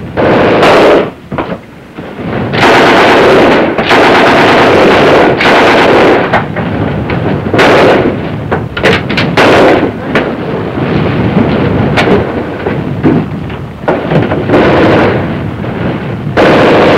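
Battle gunfire: repeated loud bursts of small-arms fire and blasts, each lasting from a moment to about a second and a half, with short gaps between them.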